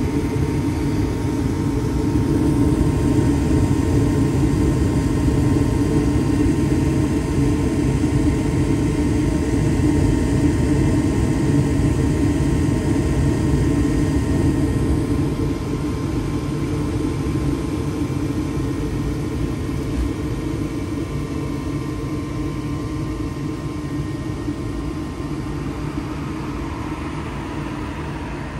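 Draft inducer motor of a 2007 Heil gas furnace running steadily during the furnace's startup, a steady whir with a faint high tone over it, easing off gradually in the second half.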